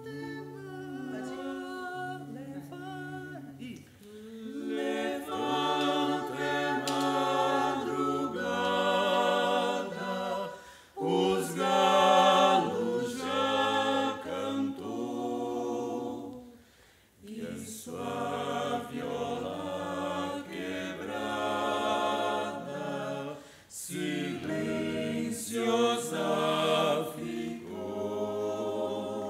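Mixed vocal quartet of two women and two men singing in harmony, without instruments, in several phrases with short breaks between them.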